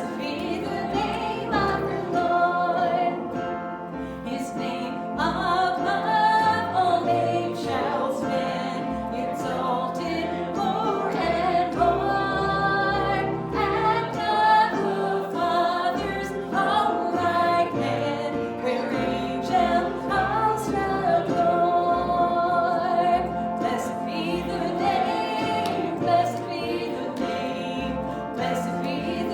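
A church worship band and congregation singing a gospel worship song, voices carried over steady instrumental accompaniment.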